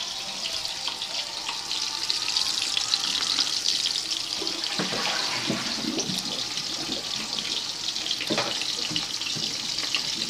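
Fish frying in oil in a lidded pan on the stove: a steady sizzling hiss full of small crackles and pops.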